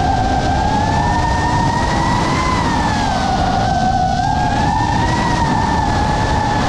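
FPV quadcopter's motors and propellers whining in flight, the pitch drifting slowly up and down with the throttle over a steady rushing noise.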